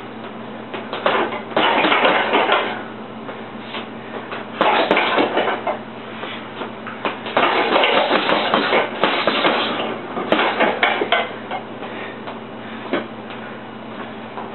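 Boxing gloves striking a hanging heavy bag in flurries of rapid punches, with short pauses between combinations; the longest flurry runs several seconds about halfway through.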